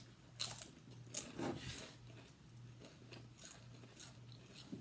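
Someone chewing crunchy chips, with a series of faint irregular crunches.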